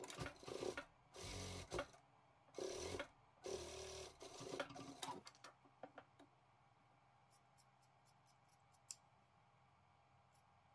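Industrial lockstitch sewing machine running in several short stitching bursts through the first five seconds or so, stopping and starting as the fabric is guided. After that, only light scattered clicks, as of scissors trimming threads.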